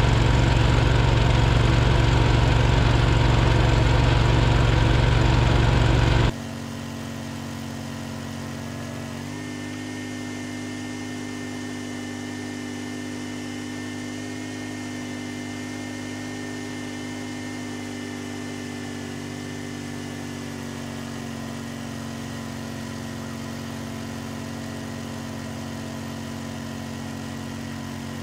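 Snowblower engine running steadily under load. About six seconds in the sound drops abruptly to a quieter, steady engine drone that carries on to the end.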